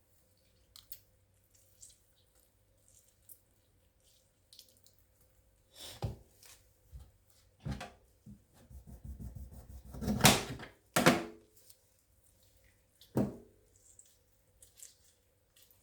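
Kitchen utensils and containers being handled: scattered knocks and clatters on a counter, with the loudest clatter about ten seconds in, led by a low rumbling shuffle.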